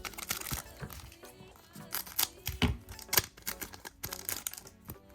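Background music, with a string of sharp crinkles and snaps from a trading card booster pack's foil wrapper being handled and torn open.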